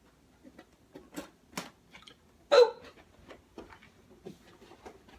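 A cardboard shipping box being cut open with a box-cutter knife and handled: a string of short, irregular clicks, taps and scrapes.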